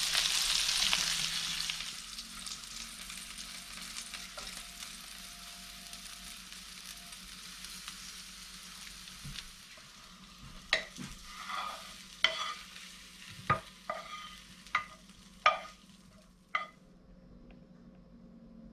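Battered flathead fillets sizzling as they fry in butter and oil, loudest in the first couple of seconds and then settling to a quieter hiss. From about ten seconds in, a run of about eight sharp clacks as a wooden spoon stirs stir-fry vegetables in the pan and the food is plated.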